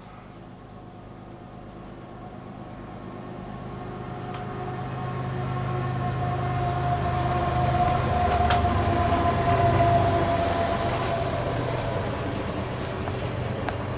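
Canadian National diesel freight locomotives approaching and passing. The low engine drone grows steadily louder to a peak about ten seconds in, with a steady high-pitched tone over it, then eases off as the train's cars follow.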